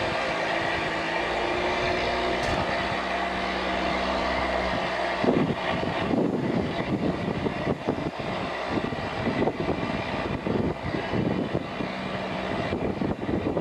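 A vehicle engine runs with a steady hum. About five seconds in, irregular gusts of wind buffet the microphone and take over.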